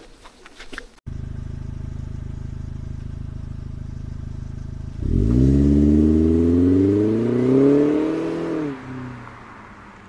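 Car engine running steadily, then accelerating from about halfway, its pitch rising for a few seconds before it drops away.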